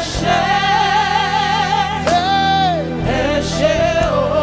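Live gospel worship song: a voice holds long notes with vibrato over a band's sustained bass and keys, with one note bending downward about halfway through.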